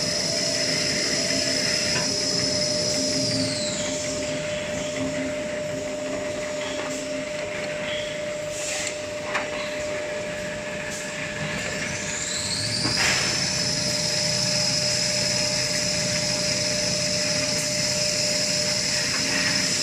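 Toilet paper production line machinery running with a steady hum and a high whine. The whine slides down and drops away about three seconds in, then winds back up about thirteen seconds in, with a sharp click near nine seconds.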